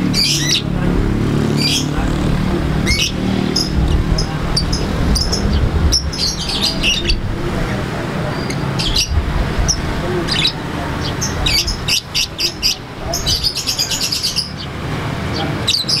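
Caged Fischer's lovebird chirping in repeated short, sharp high notes, with runs of fast rattling notes in the second half, over a steady low background rumble.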